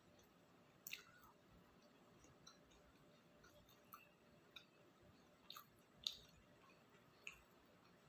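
Quiet chewing of octopus takoyaki, with about half a dozen short, sharp, wet mouth clicks spaced irregularly over a faint background.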